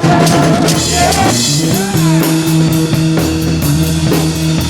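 Rock music with guitar and drum kit, playing loudly with sustained notes.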